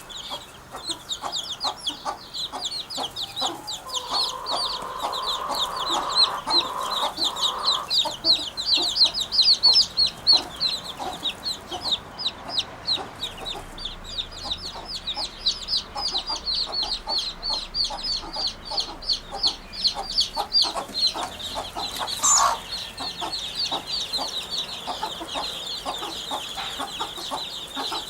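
Birds calling: a fast, unbroken series of short, high chirps, several a second, with a single sharp knock about 22 seconds in.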